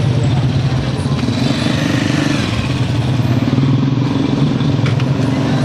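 A motor vehicle engine running steadily with an even, low hum, amid road traffic.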